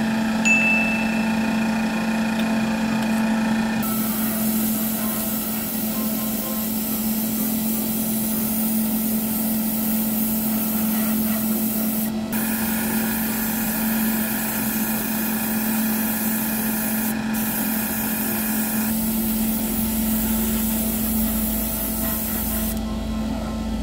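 An airbrush spraying gloss clear coat: a steady hiss of air and paint that cuts out for a moment twice and stops shortly before the end. A constant low hum runs underneath.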